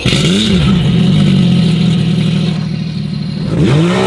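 Jet ski engine of a custom RZR-bodied personal watercraft revving as the craft pulls away: a quick rev about half a second in, steady running, then the pitch drops and climbs again near the end.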